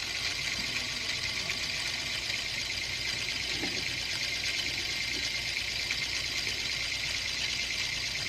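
Spring-wound clockwork drive of a Bell & Howell Filmo 70DL 16mm film camera running at high speed with no film loaded: a steady, high mechanical whir. The mechanism is freshly oiled, and without the film's weight to slow it, it runs really fast.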